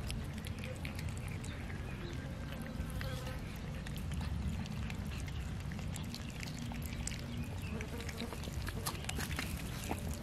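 Cats and kittens chewing raw chicken, a steady run of small wet clicks and crunches.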